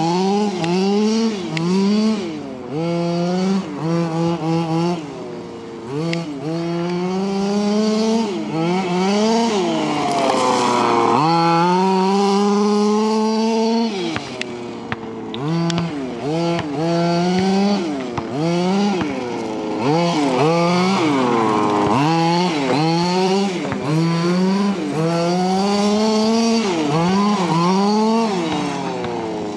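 HPI Baja 5SC 1/5-scale RC truck's two-stroke petrol engine revving up and down as the throttle is worked, in repeated short blips. It climbs to high revs for longer about ten seconds in and again about twenty seconds in.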